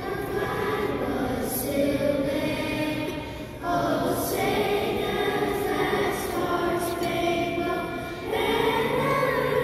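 Elementary school choir singing a slow patriotic song over the arena's sound system, with long held notes and echo from the hall. The singing dips briefly between phrases about three and a half seconds in and again shortly before the end.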